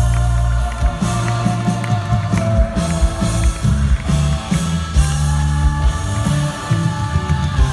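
Live rock music played loud through a concert sound system: heavy bass notes under long held tones, with a light, regular beat.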